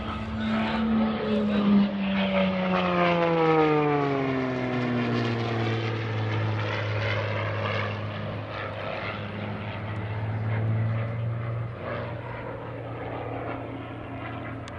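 MXS aerobatic monoplane's piston engine and propeller running at high power as it flies past. A couple of seconds in, the note drops steeply in pitch as the plane passes, loudest at that moment, then settles to a steady lower note as it pulls away.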